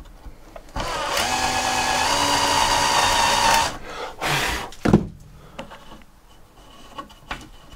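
Power drill boring a shallow hole into a wooden beam: the motor whines for about three seconds, stepping up in pitch twice as it speeds up, then runs again briefly. A sharp knock follows about five seconds in.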